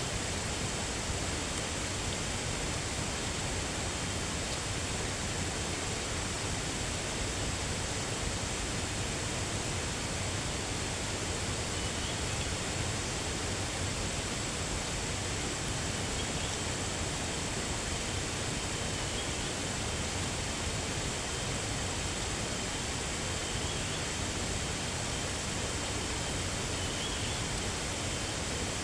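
A steady, even rushing noise with a faint, short high chirp every three to four seconds.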